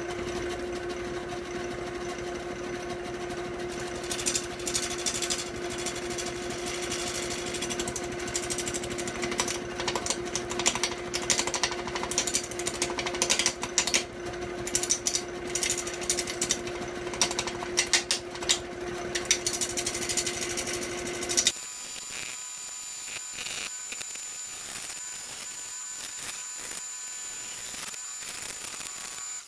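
Wood lathe spinning a heavy squared mahogany blank with a steady motor hum, while a spindle roughing gouge knocks the corners off to bring it to round, giving rapid, irregular sharp clacks from about four seconds in. About three-quarters of the way through the low hum drops away, a faint high whine takes its place, and lighter clacking goes on.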